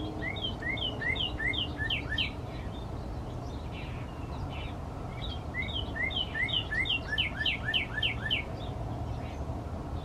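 Northern cardinal singing: two phrases of quickly repeated slurred whistles, about three notes a second, the second phrase starting about five seconds in. A steady low rumble runs underneath.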